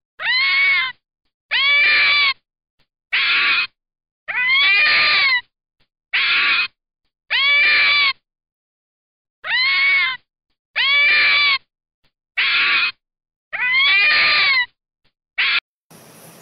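Red fox calling: a series of about eleven high whining calls, each rising and then falling in pitch, with a short clipped one near the end.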